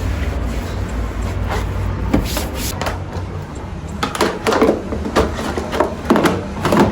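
Household objects being handled indoors: a run of short knocks and clatters, thicker in the second half, over a steady low hum.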